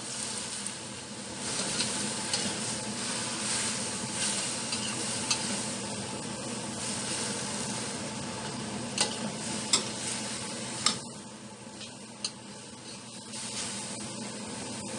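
Enoki mushrooms, red paprika and green chilies sizzling in a wok with a splash of water while being stirred, the utensil scraping and tapping sharply against the pan a few times. The sizzle eases slightly about two-thirds of the way through.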